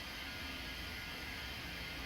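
Steady hiss of compressed air flowing into a large tire on a tire changer. The bead has not yet popped into place, and air is likely escaping around it.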